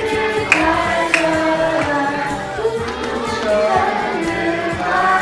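A group of voices, children's among them, singing a birthday song together.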